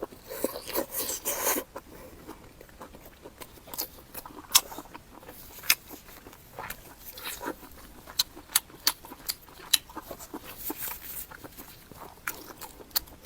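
Close-miked eating sounds: a crunchy chewing stretch in the first second or so, then scattered wet mouth clicks and smacks as food is chewed.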